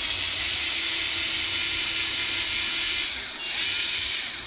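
Amazon Basics lightweight cordless electric screwdriver running steadily as it backs out a screw, with a brief break about three and a half seconds in before it runs again.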